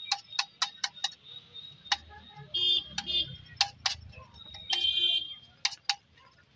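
Metal spatula clacking and scraping on a flat iron tawa as chickpea filling is chopped and stirred: irregular sharp metallic taps, with two brief higher scraping squeals in the middle.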